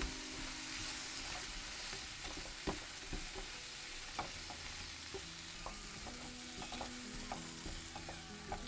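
Sweet potato chunks sizzling in bubbling sugar syrup in a frying pan as they are stirred with chopsticks, with irregular light taps of the chopsticks against the pan.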